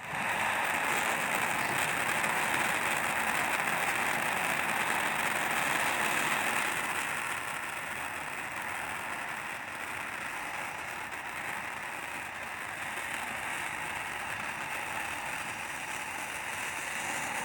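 Phantom Funnies firework fountain from Phantom Fireworks burning: a steady hiss of spraying sparks that starts suddenly, louder for the first several seconds and then a little lower.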